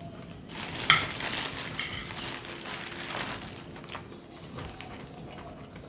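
Table sounds of a meal: a sharp clink of cutlery on a plate about a second in, then a couple of seconds of rustling and eating noise that fades away.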